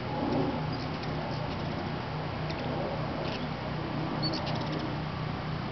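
Hummingbirds at nectar feeders giving a few short, high, squeaky chip calls, with a quick run of ticks about four seconds in, over a steady low hum.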